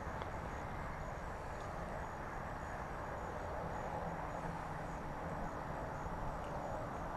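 Crickets chirping in an even, repeating rhythm of short high-pitched chirps, over a steady rushing background noise.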